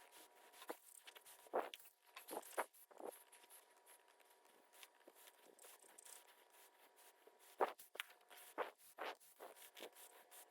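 Faint, irregular knocks and scrapes of things being handled, a few at a time, over a faint steady hum.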